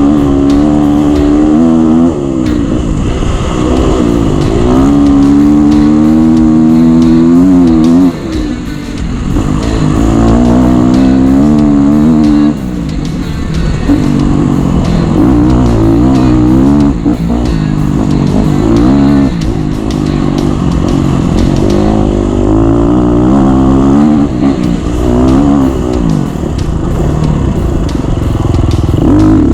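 Off-road dirt bike engine being ridden, its pitch rising and falling over and over as the throttle is opened and eased off, with short let-offs now and then.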